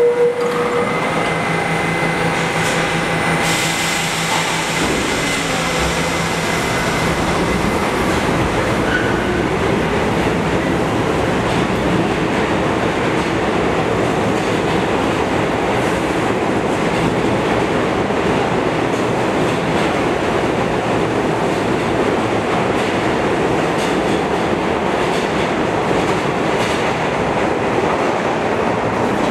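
R68A New York City subway train pulling out of an underground station, its wheels and motors running steadily loud as the cars roll past on the rails.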